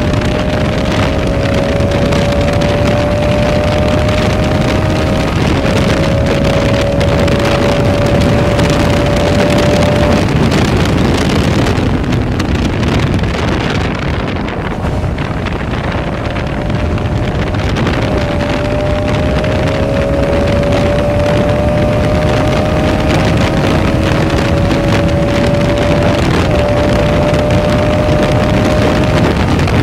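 Heavy wind noise on the microphone at high road speed over the Bajaj Pulsar RS200's 199.5 cc single-cylinder engine. The engine note climbs slowly as the bike accelerates, with two short breaks, and fades for a few seconds about halfway through before climbing again.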